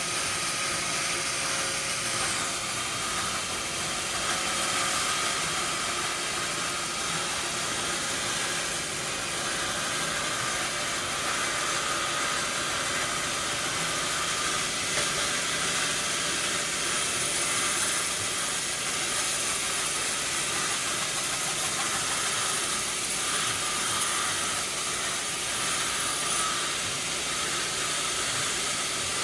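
Sawmill machinery running steadily: an even, hissing noise with an engine-like hum beneath it, without breaks or separate knocks.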